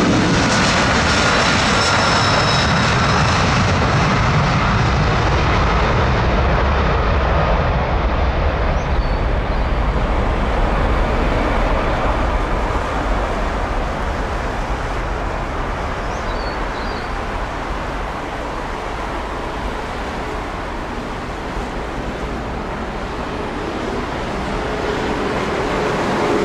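Jet airliner's engines running loud, with a high whine in the first few seconds; the noise gradually fades, then swells slightly again near the end, as of an aircraft passing by.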